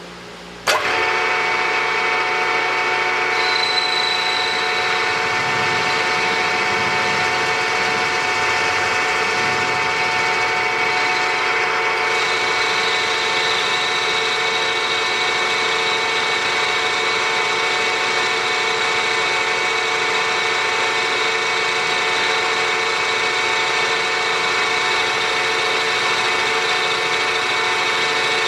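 Milling spindle of a 3-in-1 lathe-mill starting up abruptly about a second in and then running steadily, with a constant multi-tone gear whine, as the end mill cuts into the cast iron backing plate.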